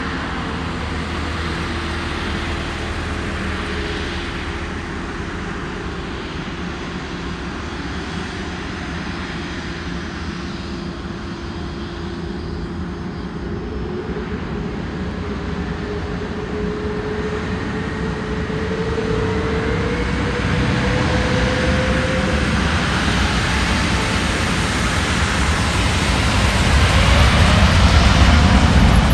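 Airbus A330neo's Rolls-Royce Trent 7000 turbofans running as the airliner taxis on the runway: a steady jet hum and whine, with a tone that rises a little about two-thirds of the way through. The engine sound grows louder over the last ten seconds.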